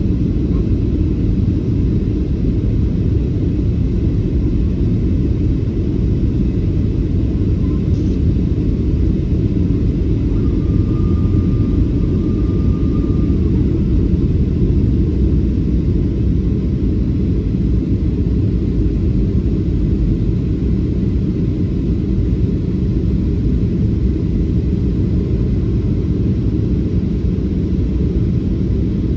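Steady low rumble of an airliner's engines and airflow heard from inside the passenger cabin during the descent to land, with a faint high steady tone for about three seconds near the middle.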